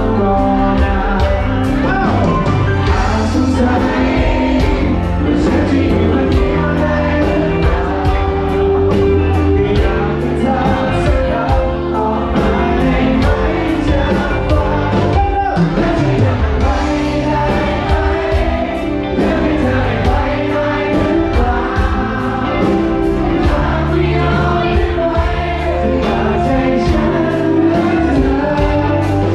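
Loud music with singing over a steady beat, played through a nightclub's sound system.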